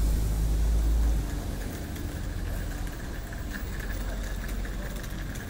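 Low, steady hum of an idling vehicle engine, loud for the first second or so and then dropping to a softer rumble.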